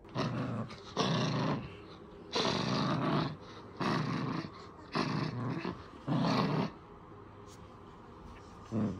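Maltipoo puppy growling in short bursts about once a second while tugging on a rope toy: play growling during tug-of-war.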